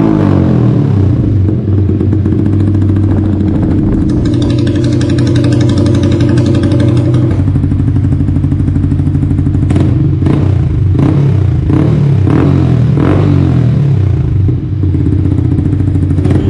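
Yamaha R15 V3's single-cylinder engine idling steadily through its exhaust, then blipped sharply about four times in quick succession in the second half before settling back to idle.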